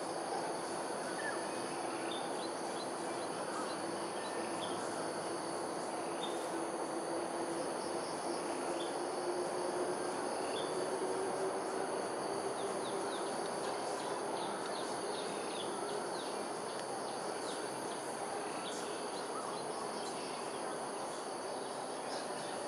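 Outdoor morning ambience: short high bird chirps scattered throughout, with quicker runs of chirps about halfway through and again near the end, over a steady high insect drone and a constant low background hum.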